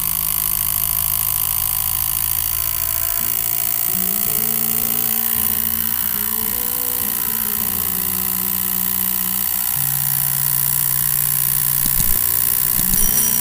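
Homemade pulse motor running, its reed switch buzzing as it snaps open and shut with each passing rotor magnet and the drive coil pulsing in step. The buzz is steady but its pitch jumps up and down in steps as the rotor speed wanders, with two sharp clicks near the end. This noise is the weakness of a reed switch; a sensor would be silent.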